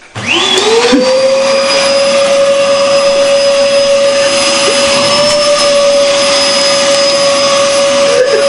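Vacuum cleaner switched on abruptly: its motor spins up with a rising whine in about half a second, then runs loud and steady.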